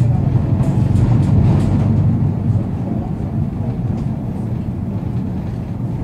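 The 225 hp MAN D0834 four-cylinder inline diesel engine of a Volkswagen 17-230 OD Euro V bus running: a steady low drone that eases a little about two seconds in.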